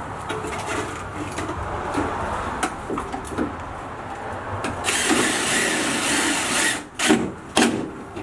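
Cordless drill driving screws, with light handling clicks at first, then the drill motor running for about two seconds, followed by two sharp knocks.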